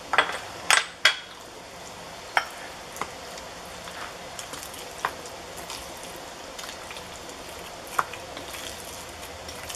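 Metal spoon stirring ground chicken, minced garlic and raw egg in a glass bowl, knocking and clinking against the glass. Three sharp knocks come in the first second, then single ones every second or two, over a steady hiss.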